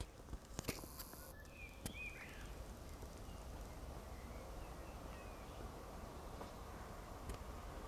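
Quiet outdoor ambience with a low steady background hiss, a few faint bird chirps in the first couple of seconds, and a few sharp clicks near the start.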